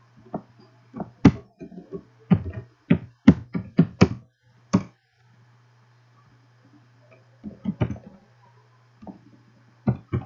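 Computer keyboard keys tapped in irregular runs, a quick string of keystrokes over the first five seconds and a few more near the end, over a low steady hum.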